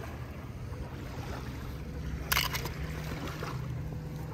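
Steady low hum with a short cluster of sharp clicks a little over two seconds in.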